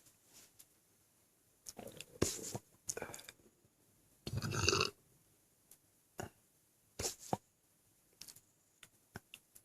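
A man's burp from an overfull stomach, short and voiced, about four and a half seconds in, after a few shorter throat sounds. Small mouth clicks follow.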